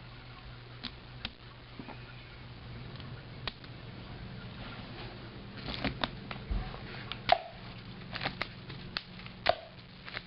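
Homemade K'nex four-barrel turret gun fired rapidly with yellow K'nex rods. It gives a series of sharp plastic clicks and snaps as the trigger releases and the turret is turned to the next barrel. The clicks come sparsely at first, then thicker from about halfway, with two louder snaps near the end.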